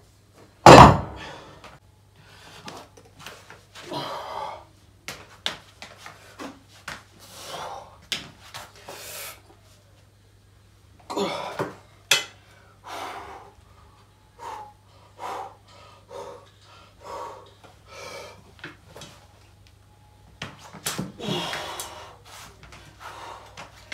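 A lifter breathing hard, with gasps and forceful exhalations, while lifting and pressing a pair of 42.5 kg plate-loaded dumbbells. A single loud knock, most likely the dumbbells, comes about a second in and is the loudest sound.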